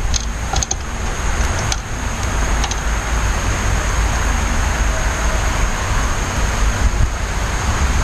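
Steady outdoor background noise, a low rumble with a rushing hiss and a thin steady high whine, with a few brief high chirps in the first three seconds.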